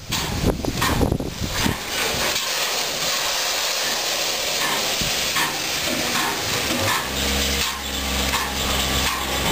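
Steam hissing steadily from a standing Bulleid Battle of Britain class steam locomotive, after a few irregular knocks at the start. About seven seconds in, a low steady drone joins the hiss.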